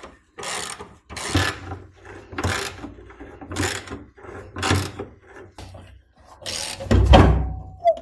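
Ratchet wrench turning a bolt out in regular back-and-forth strokes, a burst of pawl clicks about once a second. The bolt is not rusted, so it undoes without a fight. Near the end comes a heavier, deeper clunk.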